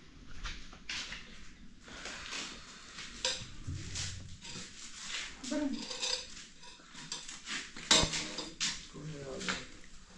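Metal pots and dishes clinking and clattering in a series of sharp knocks, the loudest about eight seconds in.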